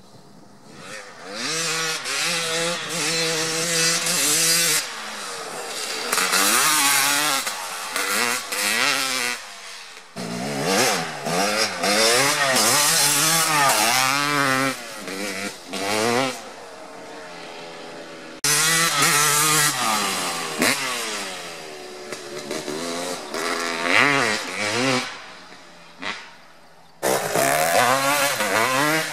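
Motocross dirt bike engines accelerating hard in several short clips: the engine pitch climbs and drops again and again through the gear changes, each clip cut off abruptly by the next.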